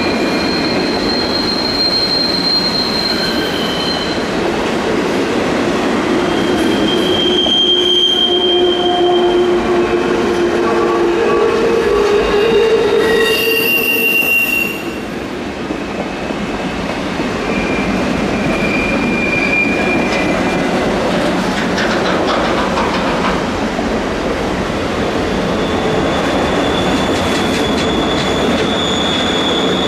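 Cars of a long CN freight train rolling past, a steady rumble of wheels on rail with wheel squeals coming and going in shifting high tones. The sound dips briefly about halfway through.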